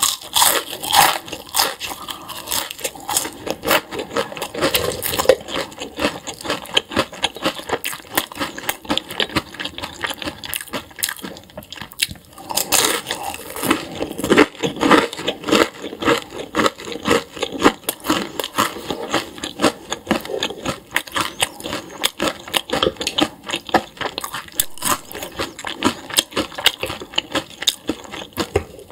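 Close-miked eating sounds: a person biting and chewing food, with dense, irregular crunching and crackling and a brief lull about twelve seconds in.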